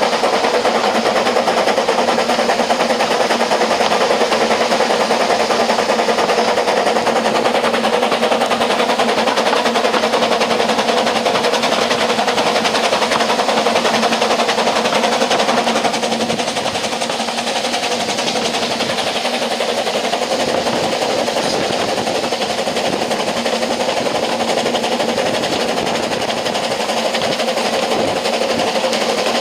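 Narrow-gauge steam train running, heard from the carriage right behind the Double Fairlie locomotive: a steady, fast rattling clatter of wheels and carriage on the track. It gets slightly quieter about halfway through.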